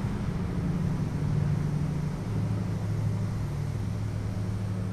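Diesel locomotive engine running with a steady low drone, heard from inside the engine compartment; its strongest tone drops lower about two seconds in.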